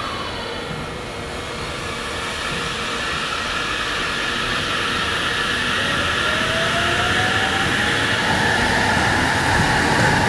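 JR West 683-series electric express train pulling away from a station platform. Its electric traction motors whine, with thin tones rising in pitch as it picks up speed from about six seconds in, and the sound grows slowly louder.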